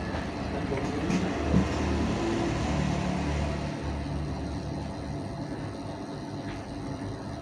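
A motor vehicle engine running with a low, steady hum, slightly louder about one to four seconds in, then easing off.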